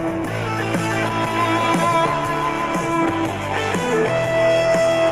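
Music with guitar playing loudly through a Xiaomi Mi Bluetooth speaker.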